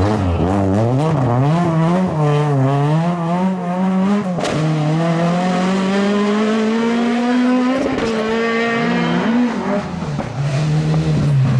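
Ford Escort rally car engine revving hard. The pitch rises and falls several times as the throttle is worked, a sharp crack comes a little over four seconds in, and then the engine climbs steadily through the revs for about three seconds before dropping back and rising again.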